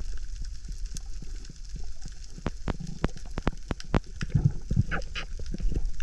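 Underwater crackle of a coral reef: many irregular sharp clicks, typical of snapping shrimp, with a couple of low muffled thuds a little over four seconds in.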